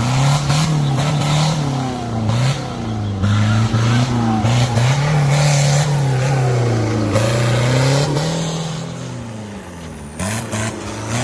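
Off-road racing 4x4's engine revving up and down over and over under load, with scattered knocks and clatter, and easing off briefly near the end.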